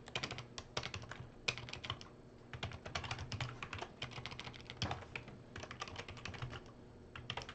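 Typing on a computer keyboard: faint, quick, irregular key clicks with a couple of short pauses.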